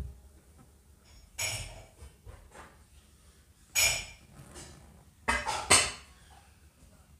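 A decorative tray and a glass vase being set down on a hard tabletop: a few separate knocks and clinks a second or two apart, the loudest a close pair near the end as the vase goes down on the tray.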